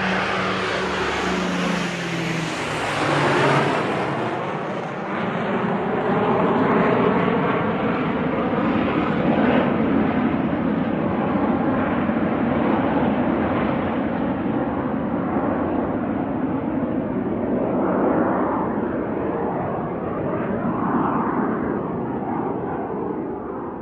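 Airplane flying past overhead: a steady, loud, rushing engine roar with a slowly sweeping, phasing quality. It grows duller as the plane moves away, and the level falls off near the end.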